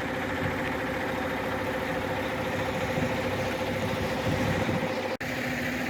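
Semi truck's engine running steadily at idle, a low even hum. The sound cuts out for an instant about five seconds in.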